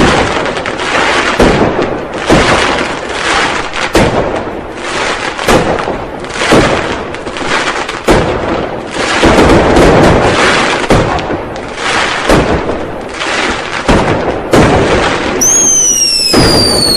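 New Year firecrackers and fireworks going off in a continuous barrage: loud bangs about once a second over dense crackling. Near the end a whistling firework starts, its whistle falling steadily in pitch.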